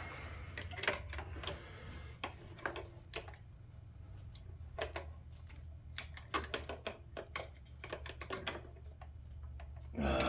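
Irregular plastic clicks and clacks of a Scepter plastic gas can being handled, over a low steady hum.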